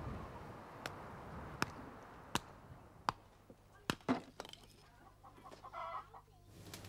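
Axe chopping wood: sharp knocks in a steady rhythm, about one every three-quarters of a second, then a short pitched call near the end.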